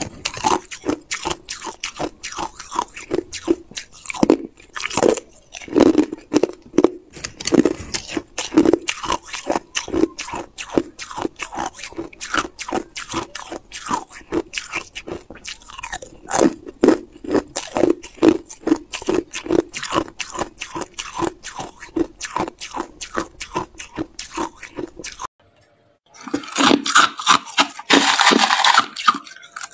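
Hard, clear ice being bitten and chewed: a long run of sharp, irregular crunches. After a brief break about 25 seconds in, a denser, hissier crunching and scraping of crushed ice in a plastic cup.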